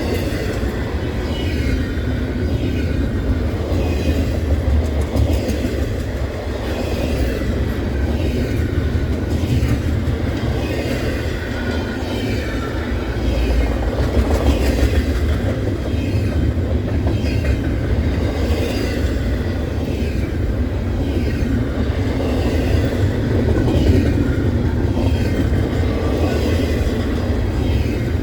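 Freight train cars rolling past with a steady rumble and the clatter of wheels over the rails.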